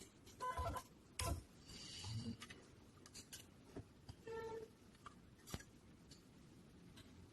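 Faint scattered clicks and a few short buzzing tones from a semi-automatic PCB soldering machine at work, one near the start and one just past the middle.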